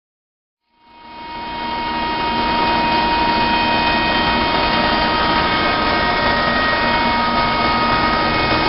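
Joy TA-025TAN4D rotary screw air compressor, driven by a 25 hp electric motor, starting up: the noise begins about a second in, builds over a second or so, and settles into a loud, steady run with a high whine.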